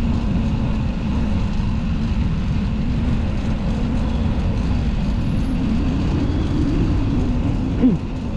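Steady low rumble of wind and street traffic noise heard while riding a bicycle, with a brief short pitched sound near the end.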